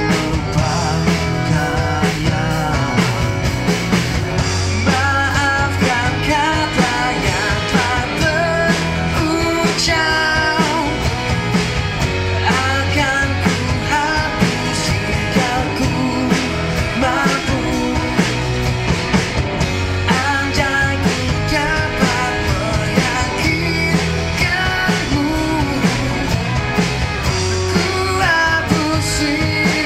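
Live street band playing through a PA speaker: an electric guitar and a male singer on a microphone over a steady beat.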